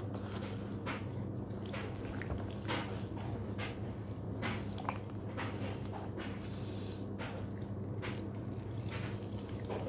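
Water trickling and dripping from a hand onto a red-footed tortoise's shell and into the shallow bath water, in small irregular splashes about once a second, over a steady low hum.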